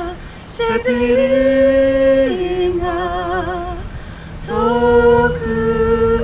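A man and a woman singing unaccompanied in slow, long held notes with vibrato, two voices at different pitches, pausing briefly for breath just after the start and again a little past the middle.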